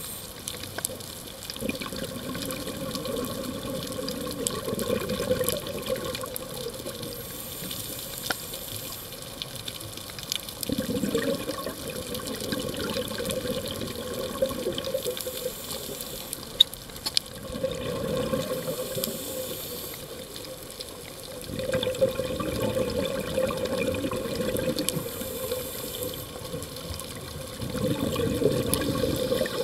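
Scuba diver breathing through a regulator underwater: a hiss on each inhale, then a rumbling rush of exhaled bubbles lasting a few seconds, repeating about every six to seven seconds.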